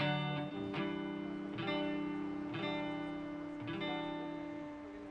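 Electric guitar strumming chords about once a second, each left to ring and fade, in the closing bars of a rock song.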